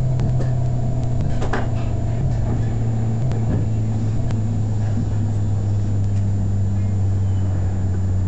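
Electric tram running, heard from inside just behind the driver's cab: a steady low motor hum that steps down in pitch twice, with a single sharp click about a second and a half in.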